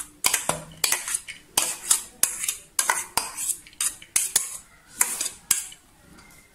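Steel spoon clinking and scraping against a bowl and an aluminium pressure cooker as washed dal is spooned into the cooker: a run of sharp clinks, two or three a second, that die away about five and a half seconds in.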